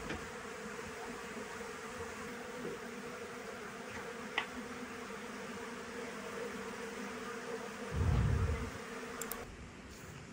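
Honeybees buzzing steadily, with a low thump about eight seconds in; the buzzing cuts off near the end.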